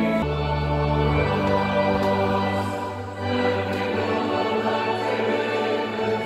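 A choir singing, with long held notes over a low sustained accompaniment.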